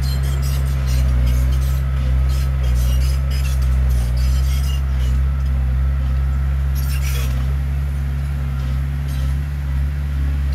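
Heavy diesel earthmoving machinery running steadily with a deep engine drone, overlaid by frequent metallic clinking and rattling, with a louder burst of it about seven seconds in.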